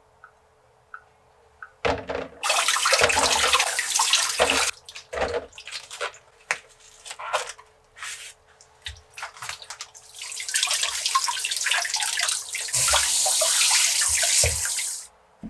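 Kitchen tap running, splashing onto peppers in a tub of water and then onto a wooden cutting board, in two long stretches. Between them come short clicks and crinkles of a pepper's plastic packaging being handled.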